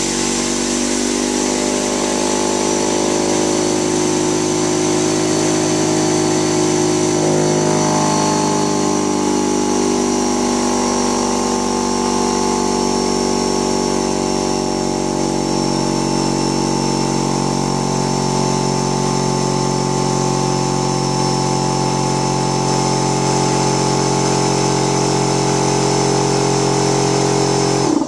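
Portable electric air compressor (1.3 running horsepower) running steadily with a loud, even motor-and-pump hum, cutting off at the very end.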